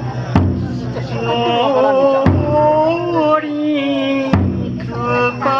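Bon odori ondo: a lead singer's long, sliding held notes with a taiko drum struck about every two seconds.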